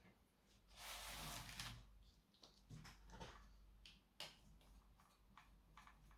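Faint handling noises from work on an opened laptop: a brief scraping rustle about a second in, then scattered light clicks and taps of small plastic and metal parts.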